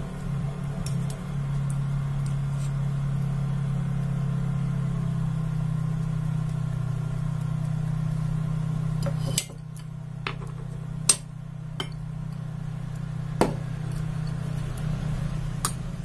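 A steady low hum runs throughout. Over it come about six sharp clinks in the second half, spaced irregularly, as a metal mesh strainer knocks against a ceramic pot.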